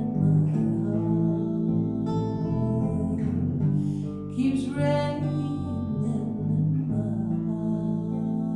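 Instrumental close of a slow soul ballad played by a small band, guitar to the fore, with no singing; the chords change every second or so, then one chord is held from about seven seconds in.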